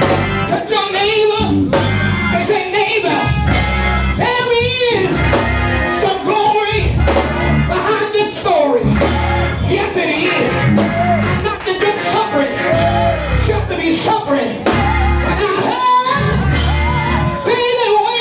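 Live church band playing an up-tempo praise-break groove with drums and heavy bass, with voices singing and shouting over it.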